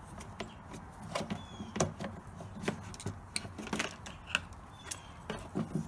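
Scattered light clicks and knocks at irregular intervals as an old ATV winch solenoid is worked loose by hand and lifted from its mount with its wiring attached.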